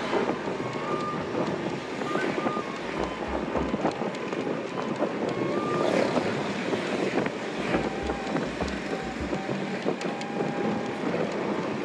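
Wind rushing over the microphone of a moving motor scooter, with the scooter's engine running and the motorbike traffic around it.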